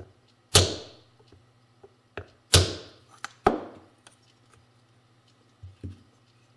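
Mallet blows tapping a transmission output shaft seal into a Yamaha YL1 engine case: two hard strikes about half a second and two and a half seconds in, each with a short ring-out. Lighter knocks fall between them, and two softer taps come near the end as the seal seats.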